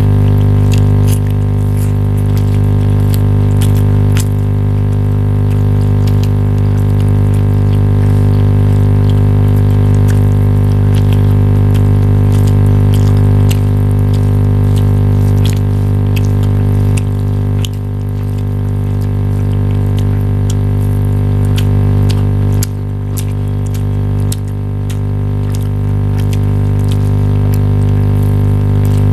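A loud, steady low hum with many even overtones, with faint short clicks and taps over it.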